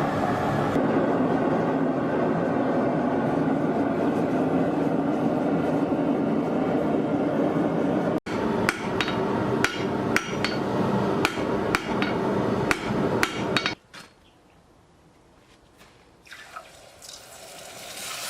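A steady drone for the first eight seconds, then a hammer striking steel on an anvil, about a dozen blows over some five seconds before it stops.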